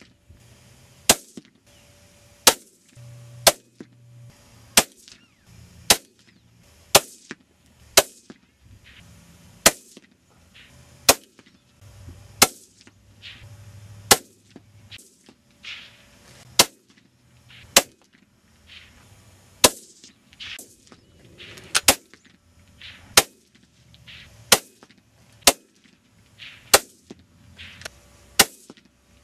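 A rapid string of about two dozen single shots from a Ruger 77/17 bolt-action rifle in .17 HMR, one every second or so, each a sudden, short report with a brief tail.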